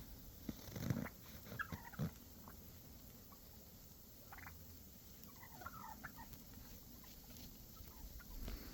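Wild turkeys calling softly, a handful of faint short clucks and purrs scattered through, with a few light knocks in the first two seconds.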